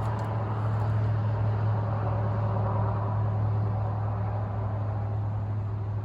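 A vehicle's engine rumble and road noise, a steady low hum with a rushing haze that swells over the first second and eases off toward the end.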